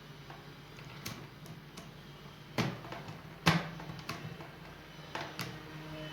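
Scattered sharp clicks and taps of a small tool working the metal contact of a hair dryer's two-speed switch, bending it because it no longer makes good contact; the sharpest click comes about halfway through. A faint steady low hum runs underneath.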